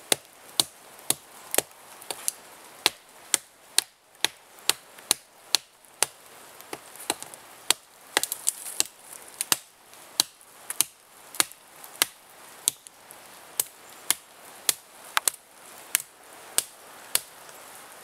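Survival knife chopping into a limb of a wet tree, sharp chops about two a second with brief pauses, a few landing in quick succession about eight seconds in.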